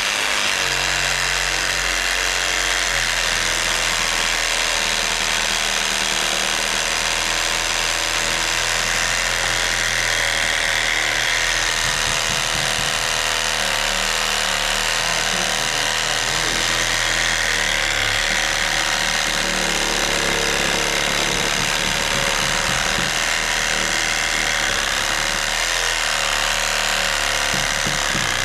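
Handheld power saw running steadily as it cuts through an 8x8 oak post to finish a notch.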